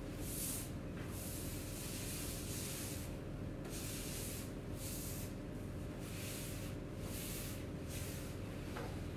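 A sponge rubbed back and forth over a floured tabletop, wiping it clean: a hissing scrub in repeated strokes, about one or two a second.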